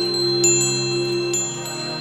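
Koshi wind chimes ringing, with bright struck notes about half a second and a second and a half in that ring on over a low held tone. Koshi chimes are a bamboo tube with tuned metal rods struck by a clapper inside.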